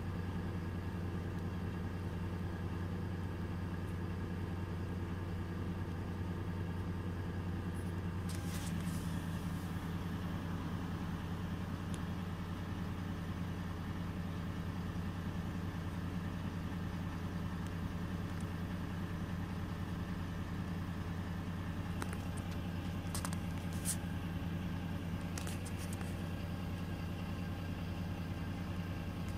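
Mercedes-Benz Citaro C2 LE Ü city bus standing and idling: its OM 936 six-cylinder turbocharged diesel engine runs steadily at idle.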